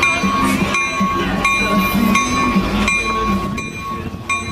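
Caltrain commuter train's bell ringing repeatedly while the train stands at the platform, about one strike a second with a ringing tone between strikes. A low steady engine hum runs underneath.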